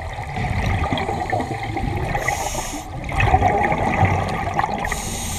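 Scuba regulator breathing underwater: exhaled bubbles gurgling and rumbling, with a short hiss of inhalation twice, about two seconds in and again near the end.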